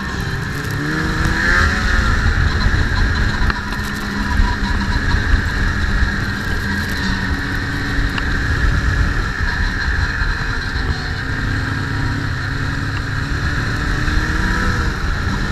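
Snowmobile engine running steadily, its pitch rising and falling as it revs about a second and a half in and again near the end.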